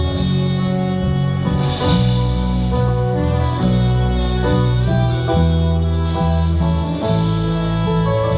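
Live instrumental worship music: sustained chords over a steady bass that change every second or two, with no singing.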